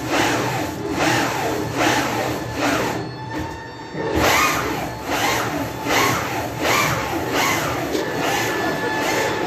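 Airbus A320 trimmable horizontal stabilizer actuator running, its ballscrew turning to drive the stabilizer, with a rhythmic rasping that repeats somewhat more than once a second over a faint steady whine. The rasping dips for about a second around three seconds in, then resumes.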